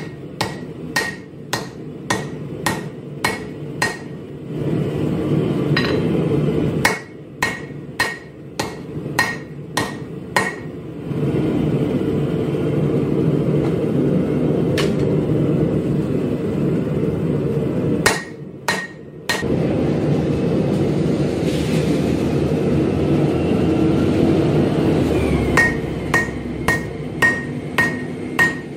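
Hand hammer striking red-hot laminated 1084/15N20 steel on a steel anvil, forging a blade. The blows come about two a second in runs with pauses between, each leaving a short high anvil ring. A steady low rushing noise runs underneath.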